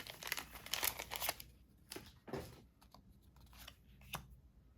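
Pokémon card booster pack wrapper crinkling and cards being handled, a dense rustle for the first second and a half, then a few scattered light clicks.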